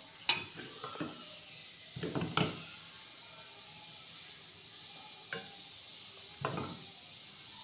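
A stainless steel saucepan on a gas stove grate giving a few scattered metallic clinks and knocks, the sharpest right at the start, over a faint steady hiss.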